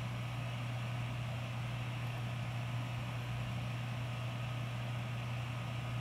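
Sony VAIO S13 laptop's cooling fan running at full speed under a heavy 3D benchmark load: a steady rush of air with a low hum beneath and no screech.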